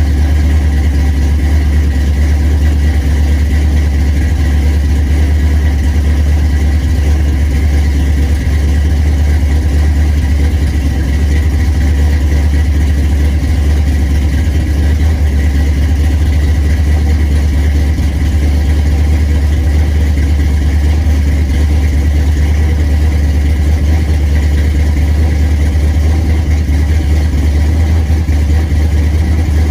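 Loud, steady, low-pitched machine drone that holds an even level and pitch throughout, with no revving or breaks.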